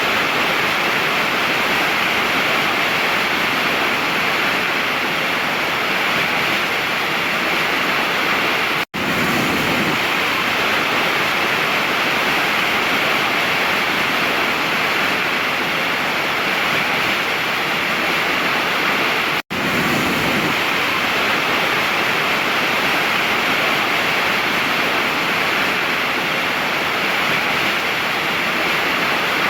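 Waterfall rushing steadily, broken twice by a very brief cut to silence, about nine and nineteen seconds in.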